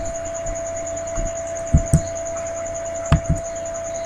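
Steady electrical whine and hiss from the recording, with soft low thumps in close pairs repeating about every second and a half.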